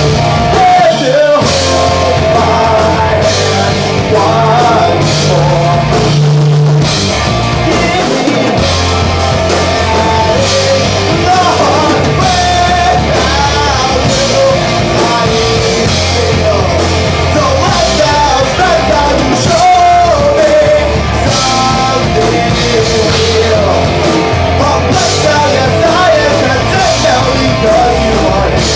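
Loud rock music: a band with drums, bass and guitar, with a voice singing over it.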